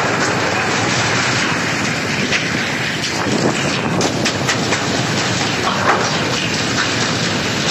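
Steady wind noise buffeting the microphone, with a few faint clicks.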